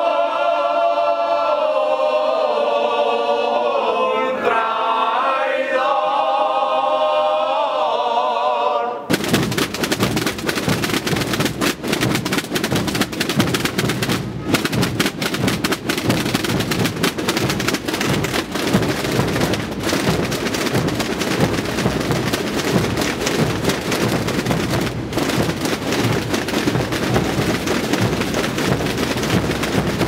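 A group of men singing a slow unaccompanied traditional chant, which breaks off suddenly about nine seconds in. Massed snare drums and bass drums then play together as a dense, continuous drum roll of many fast strokes.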